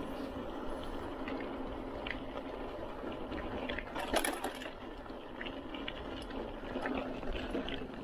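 Mountain bike rolling along a rough concrete road: a steady rush of tyre and wind noise with scattered clicks and rattles from the bike, the loudest cluster about four seconds in.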